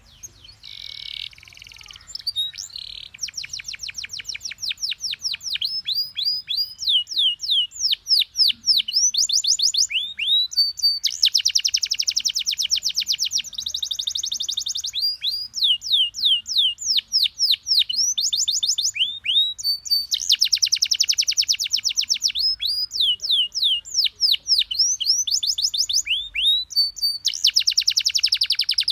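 Domestic canary singing continuously: runs of quick, downward-sweeping whistled notes alternating with fast, dense rolling trills, repeated over and over.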